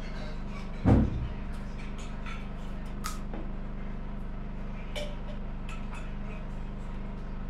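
A dull, low thump about a second in, then light scattered taps and scrapes of a painting tool working paint onto canvas on a wooden easel, over a steady low hum.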